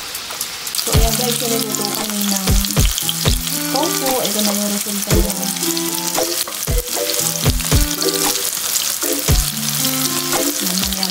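Tofu cubes sizzling as they fry in hot oil in a nonstick pan, turned now and then with a spatula. Background music with a steady beat plays over it.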